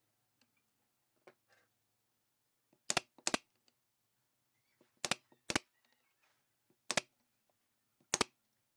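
Six sharp knocks on wood during woodworking, the first four in two quick pairs, with faint tapping and handling between them.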